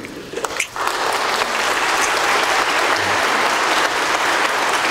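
Congregation applauding, with a few scattered claps in the first second, then swelling into steady applause.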